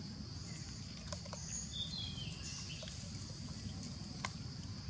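Forest ambience: a steady high-pitched insect drone over a low rumble, with a short falling bird call about two seconds in and a couple of sharp clicks.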